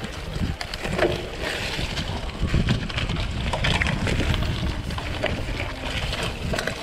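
Wind buffeting a bike-mounted camera's microphone during a mountain bike ride on a dirt trail, a steady low rumble with scattered clicks and rattles from the bike over rough ground.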